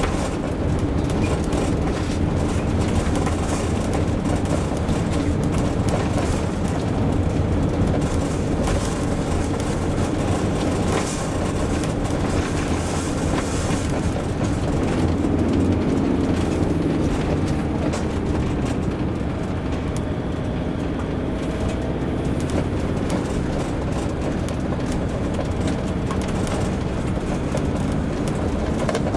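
Motorhome being driven, heard from inside the cab: a steady mix of engine and tyre noise from the road, with small clicks and rattles throughout.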